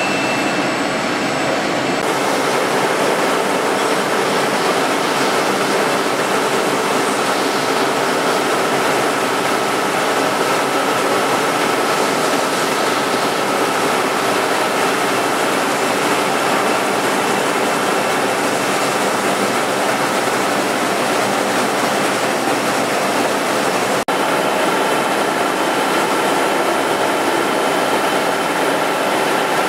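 Rebuilt Royal 333 machine, fitted for flame-sealing, running: a loud, steady mechanical noise with a few constant hums. The sound shifts about two seconds in and breaks off for an instant about 24 seconds in.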